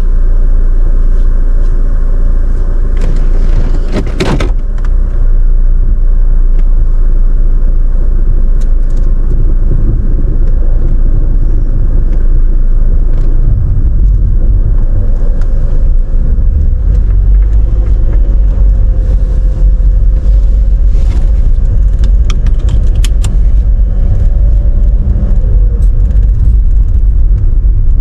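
Steady low road rumble inside a moving car, tyres and engine, with a brief rattle about four seconds in.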